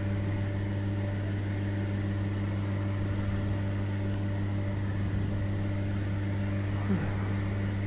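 Steady low mechanical hum of kitchen equipment running, an even drone that holds without change.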